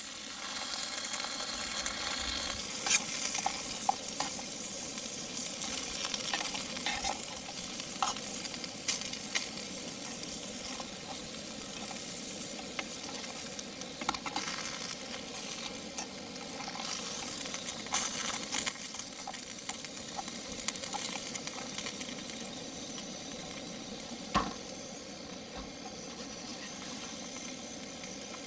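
Cubed potatoes sizzling as they fry in a small non-stick pan on a canister camp stove. Now and then a knife turning them clicks and scrapes against the pan.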